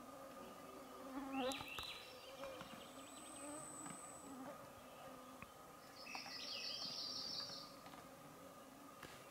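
Faint, steady buzzing of biting insects flying around the microphone. Two brief bursts of high chirping stand out, one about a second in and a longer one around six to seven seconds in.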